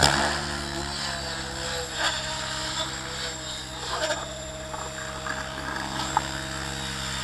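Align T-Rex 700 radio-controlled helicopter in flight: a steady whirring from its rotor and drivetrain at an even pitch, with a few brief clicks.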